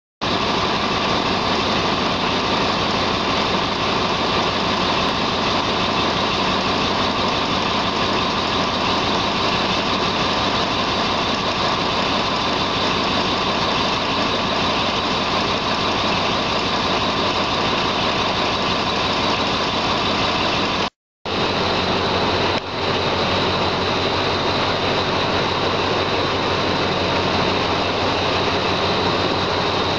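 Diesel locomotive No. 4303's engine running steadily at close range, a loud low hum with a fast, even pulse. About two-thirds of the way through the sound cuts out for an instant. It then resumes as the engine and train noise heard from aboard the train as it pulls along the platform.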